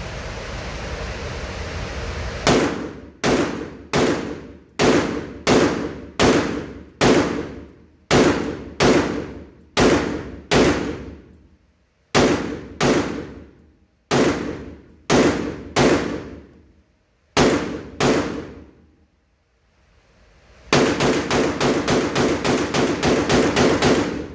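Noveske AR-15 rifle fired on an indoor range, each shot ringing off the walls. First comes a steady string of about twenty single shots, roughly one to two a second. After a short pause comes a fast run of about fifteen shots lasting some three seconds.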